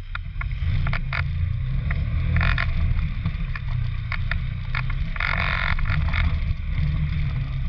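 Polaris RZR 900 XP side-by-side's engine running steadily at low speed over a rough trail, with irregular knocks and rattles from the vehicle jolting over rocks and a longer clatter about five seconds in.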